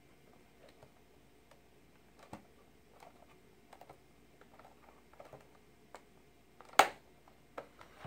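Light plastic clicks and taps from a TiVo Bolt's white plastic end cover being handled and pressed onto the case, with one sharp snap just before seven seconds in. The cover is not seating properly over the thicker 15 mm replacement drive.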